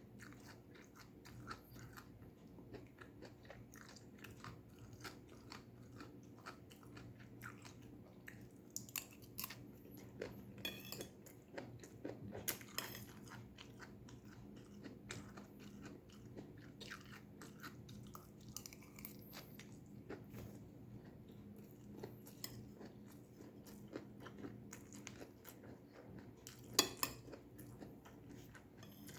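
Close-up chewing and biting of crunchy stir-fried vegetables: a run of crisp crunches and mouth clicks, a few louder bites in the middle and the sharpest one near the end, over a faint steady hum.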